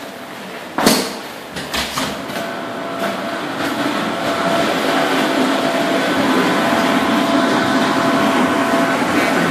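Archimedes screw hydro generator running in its generator room: a steady mechanical hum with several constant whining tones, growing louder over the first few seconds as the room is entered and then holding, at about 76 to 77 decibels. A single loud knock about a second in.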